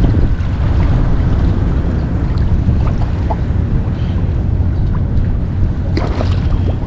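Wind noise on the microphone over shallow water, with a hooked flounder splashing at the surface about six seconds in.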